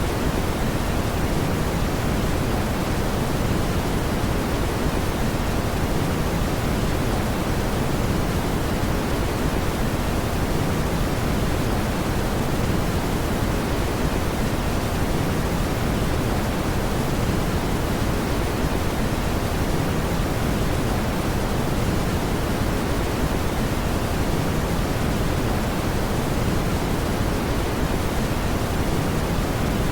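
Steady brown noise: an even, deep rushing hiss weighted toward the low end, unchanging throughout.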